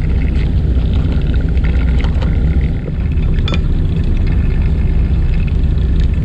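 Steady low rumble of a fishing boat's engine running, with a few light clicks of tackle being handled.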